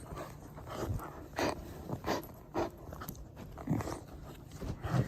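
A dog chewing and mouthing a new toy: a series of short chewing sounds about every half second to second.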